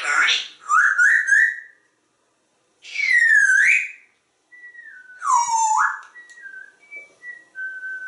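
African grey parrot whistling and calling. It gives a harsh opening call, three quick rising whistles, two swooping calls, then a string of short whistled notes ending in a longer held note near the end.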